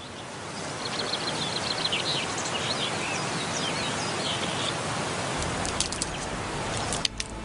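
Outdoor ambience: a steady rushing noise with small birds chirping over the first few seconds, and a few sharp clicks near the end.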